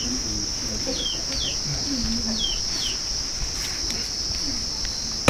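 Steady high-pitched drone of insects such as crickets or cicadas, with about five short falling bird chirps over it.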